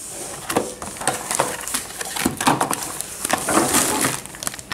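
Clear plastic packaging crinkling and rustling in the hands, a continuous run of sharp crackles, as a bagged power supply and its wrapping are handled; it cuts off abruptly at the very end.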